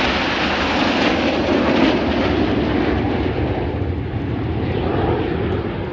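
Jet roar of the Frecce Tricolori's Aermacchi MB-339 jets flying overhead, a loud steady rush that eases off over the last couple of seconds as they move away.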